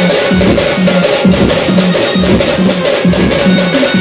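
Band music with drums and a quick, repeating line of short low notes, played loud through a truck-mounted sound system.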